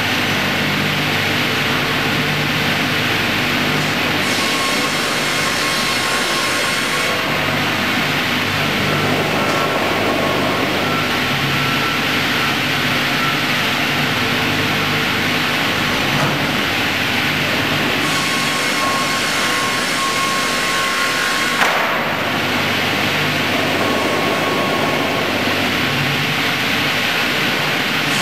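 Automated double-bladed circular sawmill running: a steady mechanical roar with a whine from the spinning saw blades. The sound changes character several times, with a brief knock about 22 seconds in.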